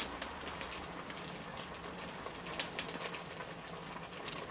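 Garlic cloves on a fork charring over an open gas burner flame: a faint steady hiss with light crackling and two sharp pops a little past halfway.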